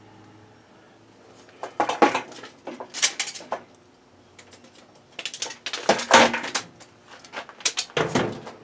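Light metallic clinking and knocking in several short clusters, with quiet gaps between: metal parts being handled or knocked together.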